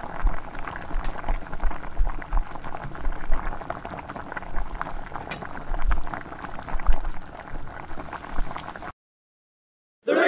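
Tirunelveli halwa mixture of wheat milk and sugar bubbling as it cooks down in a miniature steel pan, with occasional low bumps. The sound cuts off abruptly about nine seconds in.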